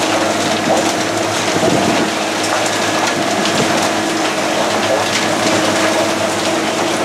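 Hail and heavy rain pelting a catamaran's deck: a dense, steady hiss full of small sharp ticks from the stones striking, over a faint steady hum.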